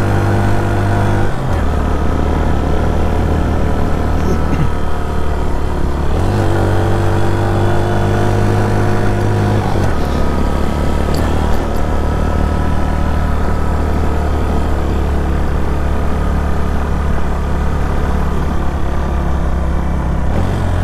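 Suzuki GS 150 SE motorcycle's single-cylinder engine running steadily while riding. Its pitch steps down about a second in, up again around six seconds, and down again near ten seconds.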